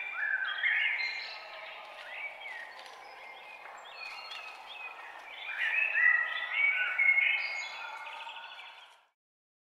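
Several songbirds singing overlapping whistled phrases over a steady outdoor background hiss. The recording fades out about nine seconds in.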